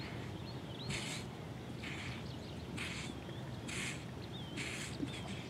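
Small birds chirping, over a soft rush of noise that comes back about once a second, five times.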